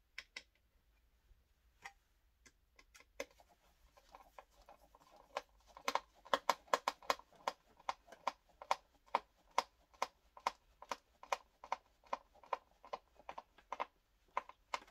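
Screwdriver driving the fixing screw into the handle joint of a Swan SC15834N upright vacuum: a few scattered clicks, then from about four seconds in a fast, regular run of sharp clicks, a few each second, as the screw is turned home.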